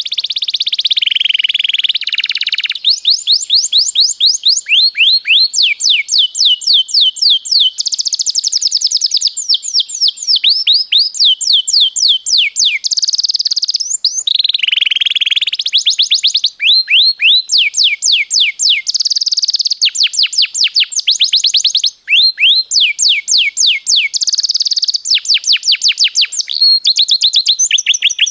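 Domestic canary singing a long, nearly unbroken song of fast rolling trills and rapid runs of falling whistled notes, with one short pause a little past two-thirds through.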